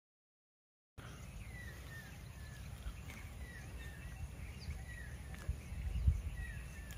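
Outdoor ambience starting about a second in: a bird repeats a short falling call about every second and a half, over a low rumble with occasional low thumps that grow stronger near the end.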